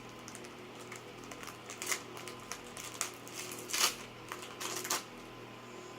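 Trading cards and pack wrapping being handled: scattered short rustles and clicks, the loudest a little after the middle, over a faint steady hum.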